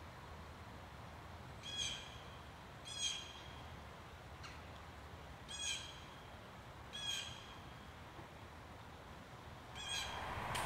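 A bird calling outdoors: five short calls spaced one to three seconds apart, over a faint steady background.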